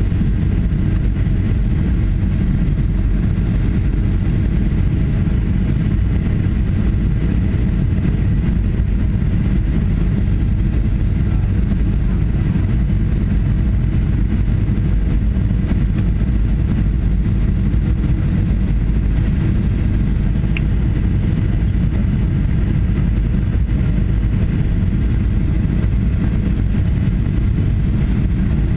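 Steady low rumble of a Boeing 737-800 in flight, its CFM56-7B engines and the airflow heard inside the passenger cabin, with a faint steady whine above it.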